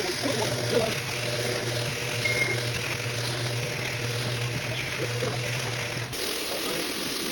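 Rug washing on a wash floor: a steady machine hum over the hiss of water spraying. The hum cuts off about six seconds in.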